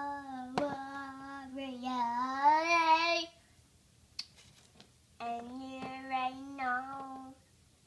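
A young girl singing two long held phrases with a pause of about two seconds between them. Her pitch wavers, and the first phrase grows loudest near its end.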